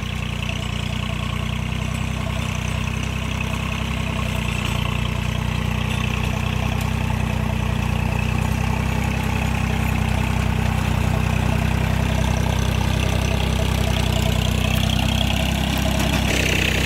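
John Deere 3028EN compact tractor's 28 hp three-cylinder diesel engine running steadily under load while it drives a rear rotavator through dry soil. It grows slightly louder as the tractor comes closer.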